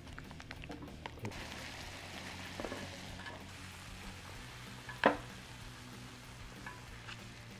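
Chicken, onion and egg in sauce sizzling in a small frying pan as chopsticks stir it, with light clicks. About five seconds in there is a single sharp knock, the loudest sound, as the pan's rim knocks against the rice bowl while the topping is slid off.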